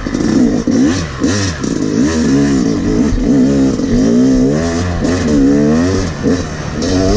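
Yamaha YZ250X two-stroke dirt bike engine under riding load, its pitch rising and falling again and again as the throttle is opened and closed through the trail. A few sharp knocks sound over it.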